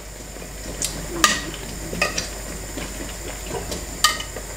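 A long-handled spoon stirring a thick, chunky stew in an enamelled pot, with a few light scrapes and knocks of the spoon against the pot.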